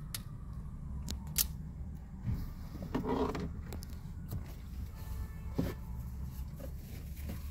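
Scattered clicks and handling knocks over a low steady hum inside a truck cab, with a short pitched sound about three seconds in.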